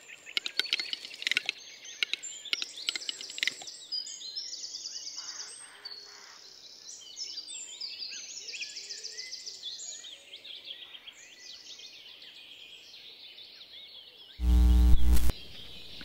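Woodland birdsong: many small birds chirping and trilling over one another, with a run of sharp clicks in the first few seconds. Near the end, a loud burst of noise lasts about a second.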